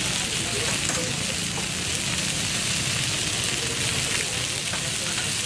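Chicken leg pieces (tangdi kabab) sizzling steadily on a flat black griddle, with a steady low hum underneath.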